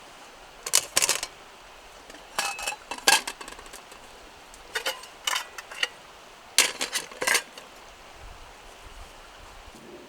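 Metal camp cookware and utensils clinking and knocking as they are handled, in four short clusters of sharp taps, a few of them briefly ringing.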